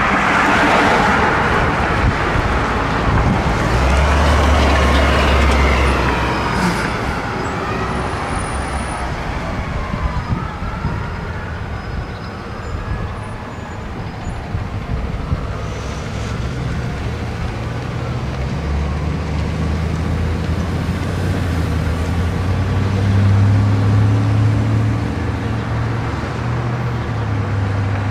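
City street traffic: vehicle engines running and passing, with a heavier engine hum near the end. An emergency-vehicle siren wails up and down during roughly the first dozen seconds, growing fainter until it fades out.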